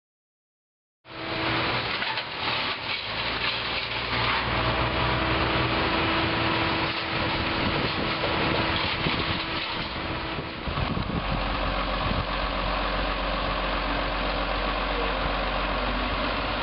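An engine running steadily, cutting in abruptly about a second in; its low hum gets heavier past the middle.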